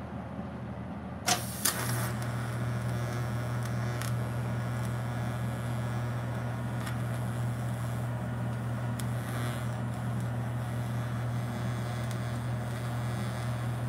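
A DC TIG welding arc strikes with a sharp crackle about a second in. It then burns as a steady low buzzing hum with a fine hiss as the welder works under load.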